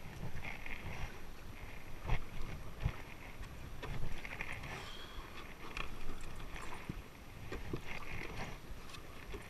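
Kayak paddle strokes: the blade dipping and splashing in the lake water, a splash about every three and a half seconds, with a few short knocks and a steady low rumble of wind on the microphone.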